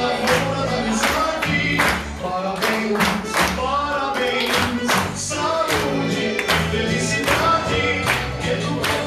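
A group of waiters singing a gaúcho birthday song together over instrumental music, with a steady beat of hand clapping.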